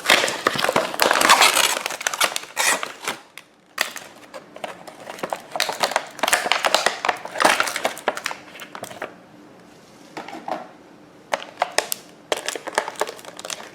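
Cardboard box being opened by hand and the packaging unpacked: rustling and crinkling with sharp clicks and knocks, busiest for the first several seconds, then scattered handling clicks near the end.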